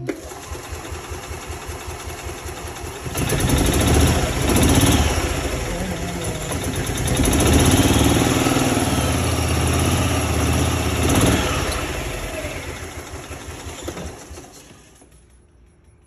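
Club Car DS golf cart's Kawasaki FE290 single-cylinder four-stroke engine cranking for about three seconds, then catching and running, revving up and down several times before winding down and stopping near the end. The engine starts after its valve lash was set to six thousandths of an inch, curing a cranks-but-won't-run fault.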